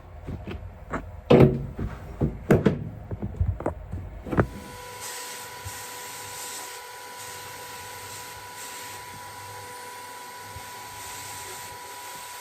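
A rapid run of knocks and clunks, like parts being handled, for about four seconds, then a steady even hum with a faint high tone.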